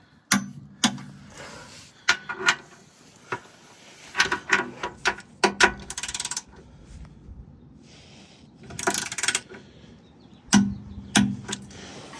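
Ratchet head of a small torque wrench clicking in short bursts as 12 mm skid-plate bolts are run in and tightened, with scattered sharp metal clicks and knocks between the bursts.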